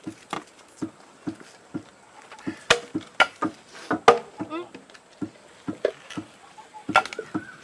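Soft knocks, about two a second in a steady rhythm, with a few sharper clicks among them and a short warbling chirp near the middle.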